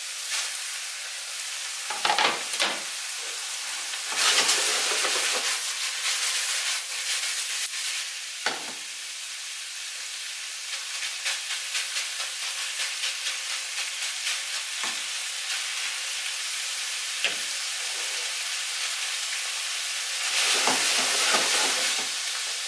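Minced beef with peppers, spring onions and tomatoes sizzling steadily in a frying pan, stirred and scraped with a plastic spatula. A few knocks of the spatula against the pan, and a louder surge of sizzling near the end as the pan is moved.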